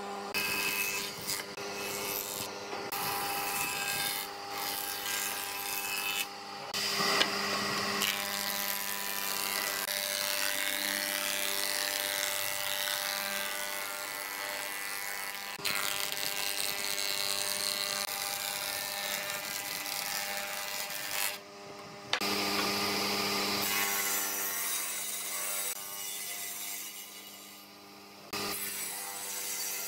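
Stationary woodworking machines running and cutting wood boards, a jointer and a thickness planer shaving the wood and a table saw ripping it, over a steady motor hum. The sound breaks off abruptly and changes several times.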